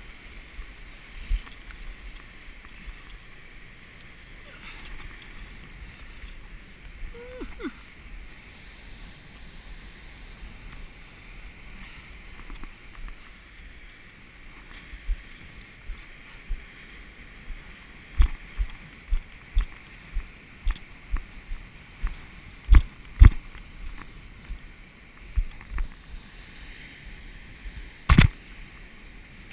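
Sea surf washing over rocks as a steady hiss, with a run of close, sharp knocks and thumps through the second half; the loudest comes a little before the end.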